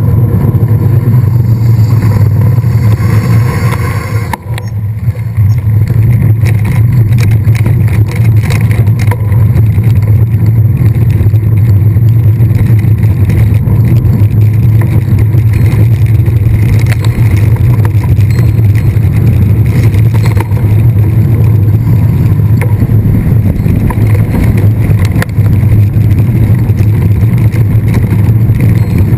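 Steady wind rumble on a camera carried on a moving mountain bike, with rattling clicks from the bike over rough ground; it eases briefly about four seconds in.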